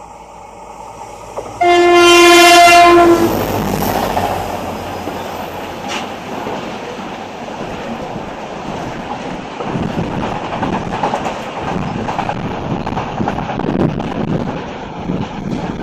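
A Renfe train sounds one loud horn blast of about a second and a half, then runs past, its wheels rumbling and clattering over the rails.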